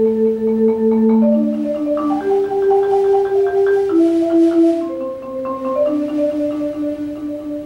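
Solo marimba played with mallets: slow chords of two or three notes, each held as a roll of quick repeated strokes, moving to a new chord every second or two. It grows softer about five seconds in.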